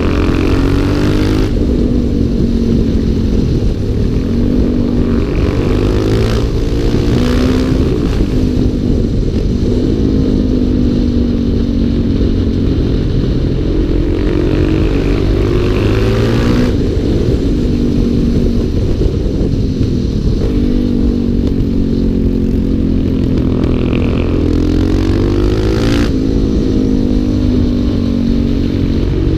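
Single-cylinder four-stroke supermoto motorcycle engine under way, revving up and easing off again and again, its pitch climbing and dropping back with throttle and gear changes through the bends.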